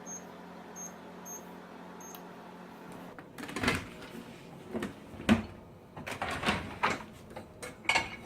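Four short high beeps from a KitchenAid dishwasher's control panel over a steady hum. The hum stops about three seconds in, followed by a series of knocks and clatters of the dishwasher door and racks and dishes being handled.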